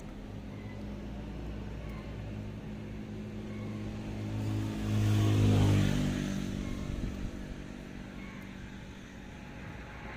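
A motor vehicle's engine going by, growing louder to a peak about halfway through and then fading away.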